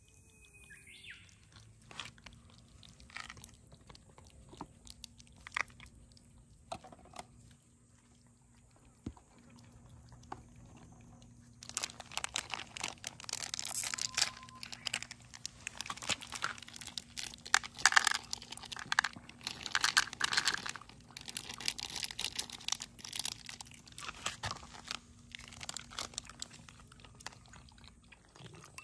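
A cat eating dry kibble close to the microphone: sparse crunches at first, then steady, dense crunching and chewing from about twelve seconds in.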